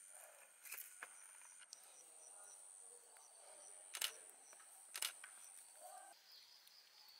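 Near silence: faint outdoor background with a thin, steady high-pitched whine and a few sharp clicks, the two loudest about a second apart near the middle.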